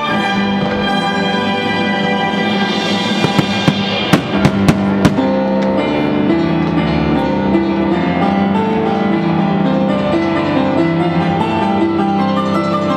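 Music with sustained chords, and a quick run of about six sharp bangs about three to five seconds in.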